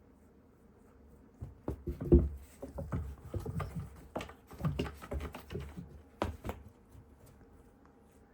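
A cat playing with a teaser wand toy: a run of irregular soft thumps and scratchy clicks as it pounces and scrabbles. The sounds start about a second and a half in, with the heaviest thump soon after, and stop a little before the end.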